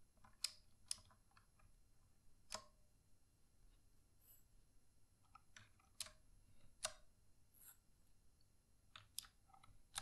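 White PBT pudding keycaps being pressed one by one onto the blue mechanical switches of a Redragon K552 keyboard. About six sharp plastic clicks are scattered among fainter ticks.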